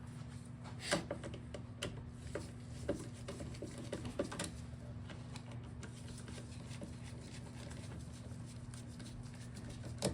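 Scattered light clicks and taps of small dirt-bike parts being handled during teardown, mostly in the first four and a half seconds, with one more near the end. A steady low hum runs underneath.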